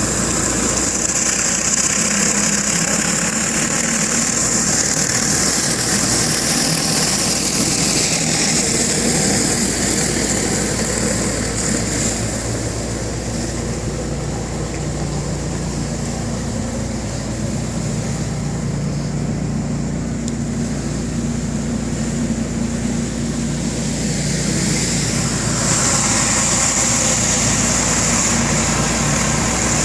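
Hot-water pressure washer running steadily: engine hum under the hiss of the high-pressure spray on concrete. The hiss fades for a stretch in the middle and comes back near the end.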